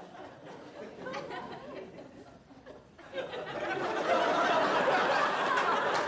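Audience laughing, building into loud applause about three seconds in.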